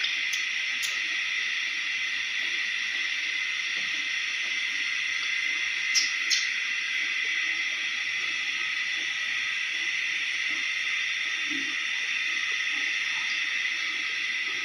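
A steady high hiss throughout, with two pairs of short sharp clicks, a faint pair within the first second and a louder pair about six seconds in.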